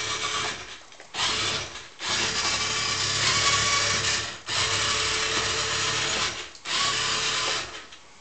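Motorised toy Dalek's drive motor whirring as it trundles across a tabletop, in five spells of a second or two each with short pauses between.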